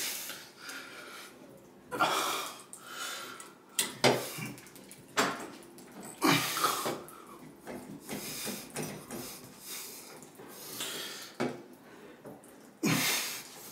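Locking pliers working a stuck Moen shower valve cartridge loose in the wall: short bouts of metal clicking and scraping as the brass stem is twisted and wiggled. Hard breaths of effort come several times between them.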